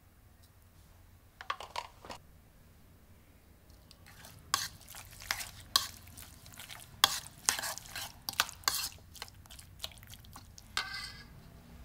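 Metal spoon stirring raw chicken thigh pieces in a plastic bowl to work the marinade in. A few light taps in the first seconds, then from about four seconds in a quick run of spoon clicks and scrapes against the bowl lasting several seconds.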